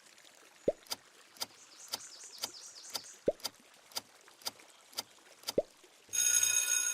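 Even ticking about twice a second, like a clock, with a few water-drop plops and faint high chirping mixed in, followed near the end by a short steady buzzer-like tone.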